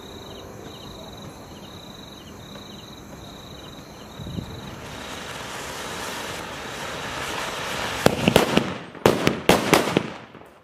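Anar fountain firework hissing as it sprays sparks, growing louder over several seconds, then the sutli bombs (twine-wrapped firecrackers) tied to it going off in a quick series of loud bangs about eight seconds in. Crickets chirp in pulses until the fountain gets going.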